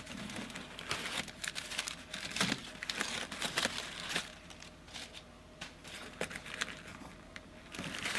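Packing material in a live-animal shipping box rustling as it is handled and pulled aside by hand: short, irregular rustles, busier in the first half and again near the end.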